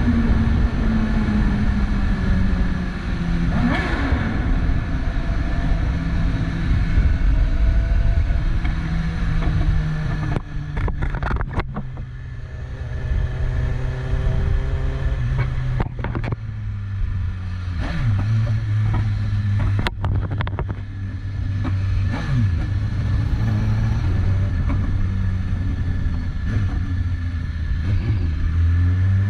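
BMW S1000RR's inline-four engine on the move, its note falling in steps from high revs down to a low, steady rumble and then revving up again near the end. A few short sharp pops come in the middle.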